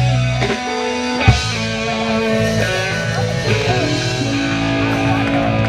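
Live band playing a slow soul number with electric guitar, bass and drums, no vocals; a sharp drum hit lands about a second in.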